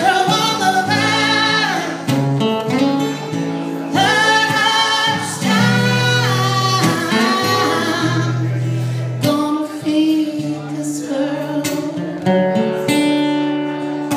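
Two acoustic guitars strumming a folk song, with a voice singing drawn-out notes over them for the first nine seconds or so. The guitars then carry on alone.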